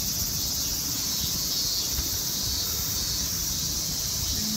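Cicadas singing in a loud, steady, shrilling chorus.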